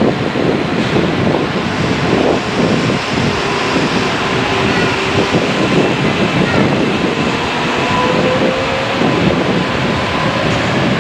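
KTX-1 high-speed trainset passing through a station at speed: a steady loud rush of air and wheels rolling on the rails, with a faint whine over it.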